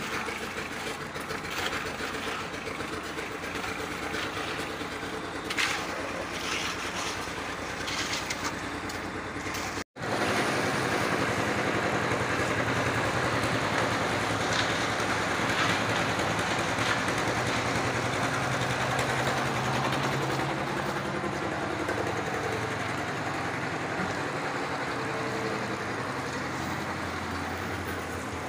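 An engine running steadily, with a few scrapes in the first part; the sound drops out for a moment about ten seconds in, then the engine continues a little louder.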